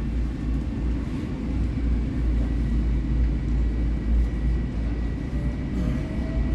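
Long Island Rail Road train running, heard from inside the passenger car: a steady low rumble with a faint steady high whine, and a faint rising tone near the end.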